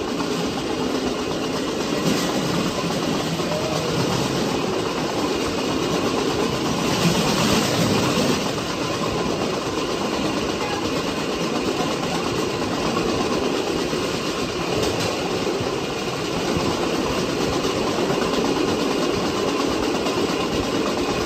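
Vélorail's steel wheels rolling steadily along the rails, a continuous rolling noise echoing inside a railway tunnel.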